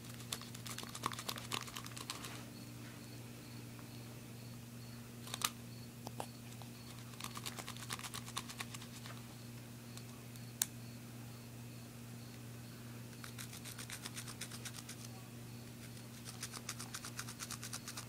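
A small knife blade sawing and scraping through the plastic hull of a 12-gauge shotgun shell, in four bursts of rapid scratchy clicks with two single sharp clicks between them.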